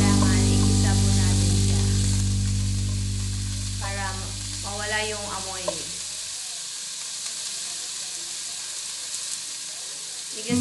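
Diced chicken sizzling as it sautés in a hot pan, a steady frying hiss.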